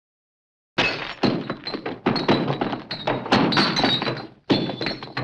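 Destruction sound effect: a rapid, continuous run of crashing and breaking impacts with shattering glass and falling debris, starting about a second in and breaking off briefly near the end before it resumes.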